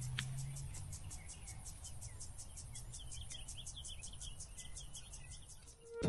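Insects chirping in a rapid, steady pulse, about six chirps a second, with a few short bird calls around the middle. A low hum fades out about a second in.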